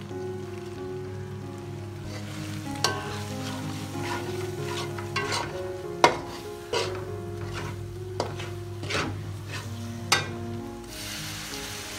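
Metal spatula stirring onions and spices frying in a metal pot: a sizzle with about eight sharp scrapes and knocks against the pot, the loudest about halfway and near the end. Soft background music plays underneath.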